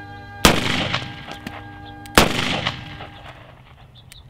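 Two gunshots about a second and a half apart, each trailing a long echo as it dies away, with a third shot right at the end. They are shots fired at pumpkins set out on a field.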